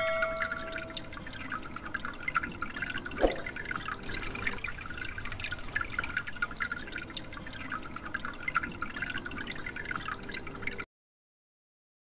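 Water dripping and trickling down a small model waterfall into an aquarium: a steady patter of drops, with one louder drop about three seconds in. It cuts off suddenly near the end.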